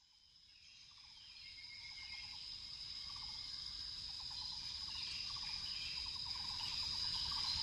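Insect chorus: a steady high-pitched insect drone with short chirps repeating below it, fading in from silence over the first couple of seconds.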